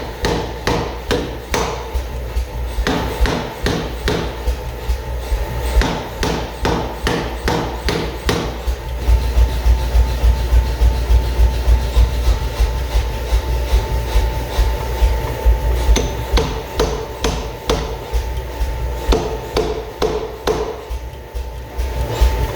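Steady runs of hammer blows on steel while forging an axe head, about two to three strikes a second and heavier from about nine seconds in, over a steady low hum.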